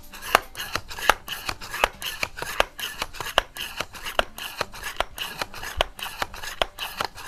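Excellent C1 multi-pump air rifle being charged with its metal front pump handle for a shot: about nine pump strokes, a little under one a second, each a scraping rub ending in a sharp click.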